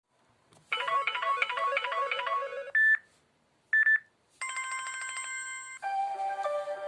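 Samsung Galaxy Trend Plus preloaded ringtones and message tones playing one after another. First a quick melody of short repeated notes lasts about two seconds, then come two single short beeps a second apart, then a bright held chord of about a second and a half, and a new melody starts near the end.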